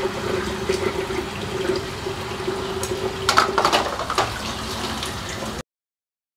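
Kitchen tap running into a sink while dishes are rinsed, the flow carrying a steady humming tone, with a few clinks of a glass about three to four seconds in. The sound cuts off abruptly near the end.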